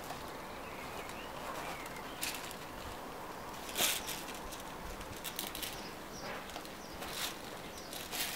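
Short rustles and scrapes of an airsoft magazine being pushed into a Cordura nylon magazine pouch, the loudest about four seconds in, over faint bird chirps.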